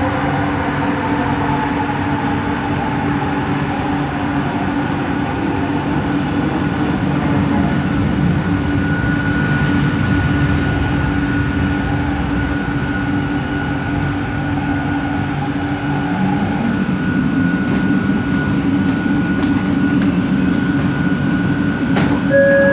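Bombardier Innovia ART 200 metro car running, heard from inside: a steady rumble with the whine of its linear induction motors. One tone falls slowly over the first several seconds, a higher steady whine comes in about nine seconds in, and a sharp knock sounds near the end.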